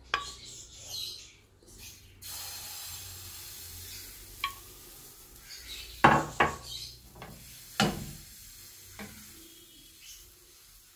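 Thin flour-and-egg batter hissing in a hot crepe pan, starting about two seconds in. Then come sharp clanks of the pan knocking on the gas stove's grate, around six and eight seconds in, as it is lifted and tilted to spread the batter.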